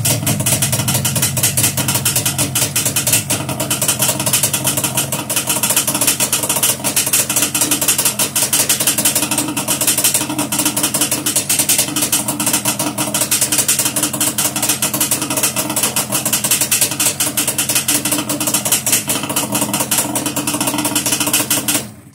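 Yamaha Banshee's twin-cylinder two-stroke engine, fitted with Toomey T6 expansion-chamber pipes, idling steadily shortly after a cold start. It cuts out abruptly near the end.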